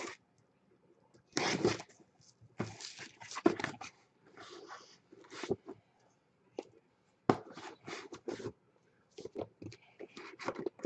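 Shrink-wrapped cardboard card boxes being handled: runs of irregular rustling and scraping with a few sharp knocks as the boxes are set down.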